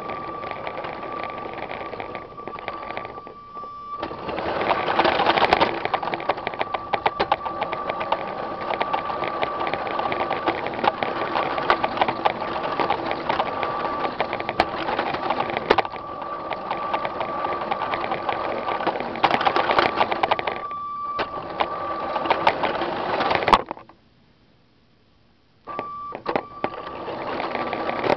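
Lego toy train's small electric motor running with a steady whine, with rapid irregular clicking of its wheels over plastic track. The sound cuts out for about two seconds near the end, then starts again.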